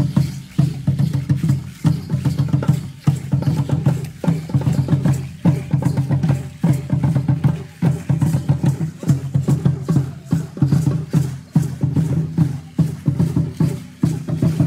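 Aztec dance drumming on huehuetl, tall upright wooden drums, struck in a steady repeating rhythm of heavy low beats.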